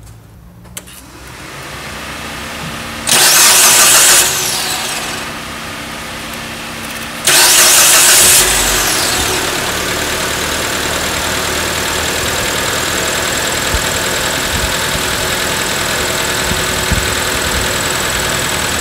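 2004 Mitsubishi Lancer's 4G18 inline-four engine being started while still lukewarm. The starter cranks for about a second, then again a few seconds later, and after the second go the engine settles into a steady idle.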